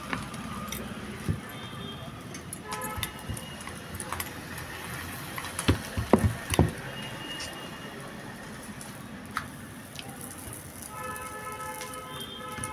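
Soft knocks and thumps of hands folding and pressing stuffed paratha dough on a wooden rolling board. The loudest is a few low thumps about six seconds in, over a steady background hiss. A short held tone with several pitches sounds near the end.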